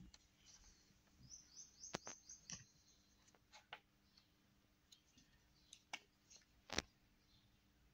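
Near silence with scattered light clicks and taps of painting supplies, paint pots and a brush, being handled on a wooden table. A quick run of faint high chirps comes a little over a second in.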